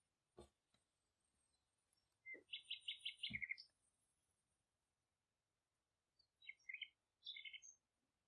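A small bird chirping in two quick runs of short, high notes, the first a couple of seconds in and the second near the end. A soft knock sounds just after the start.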